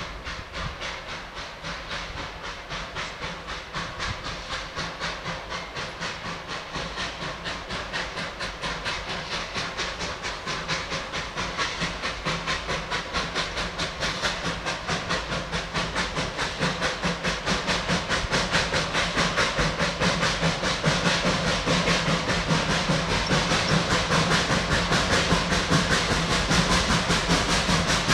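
Puffing Billy narrow-gauge steam locomotive pulling away with a train, its exhaust chuffing in a steady even beat. The chuffing grows steadily louder as the engine approaches.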